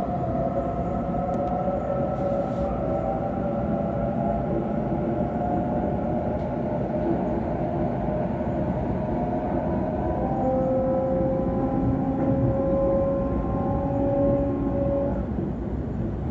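Whine of a Waratah A set's Hitachi IGBT-VVVF inverter and traction motors, heard from inside the carriage as the train pulls out of the station, several steady tones over the rumble of the wheels on the track.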